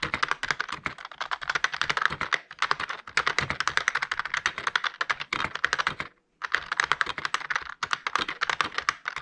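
Fast, continuous typing on an IBM Model M keyboard, membrane version: dense runs of key clicks, many strokes a second, in bursts broken by brief pauses, the longest about six seconds in.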